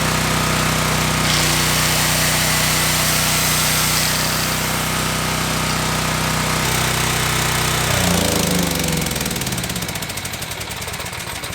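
Generac 7000EXL portable generator's engine running steadily, then shut off about eight seconds in, its pitch falling and the firing pulses slowing as it coasts to a stop.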